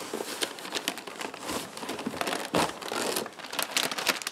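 Plastic packaging crinkling and rustling as hands rummage in a cardboard box and pull out a metallised anti-static bag, with a few louder rustles partway through.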